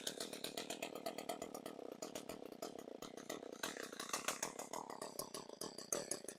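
Echo CS-3450 two-stroke chainsaw engine running unevenly, its firing pulses and loudness wavering, with the choke stuck on just after a carburetor replacement.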